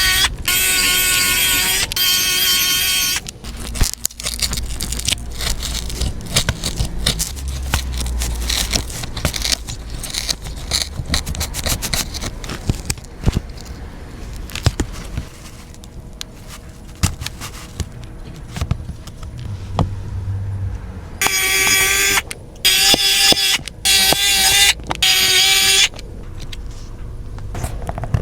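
Many small clicks and scrapes of hard parts and small tools being handled. A steady electronic tone sounds in several on-off blocks near the start and again near the end.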